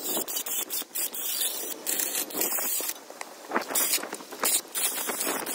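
Wire brush spun by a cordless drill, scouring rust off a rear drum-brake backing plate: its raised parking-brake shoe contact pads and the corroded cable mechanism. A harsh, irregular scraping in quick uneven strokes.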